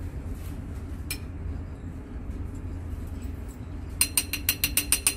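Glassware clinking as a glass pouring vessel knocks against the mouth of a 250 ml glass Erlenmeyer flask while ethanol is poured in: one light tap about a second in, then a quick run of about nine ringing clinks near the end.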